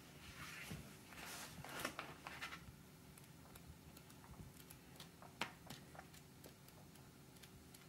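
Faint rustle of paperback pages being turned by hand: a few soft paper swishes in the first couple of seconds, then scattered light ticks of paper.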